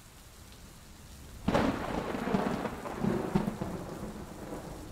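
A thunderclap that cracks suddenly about one and a half seconds in and rumbles on for a couple of seconds, swelling again briefly before it fades, over steady rain.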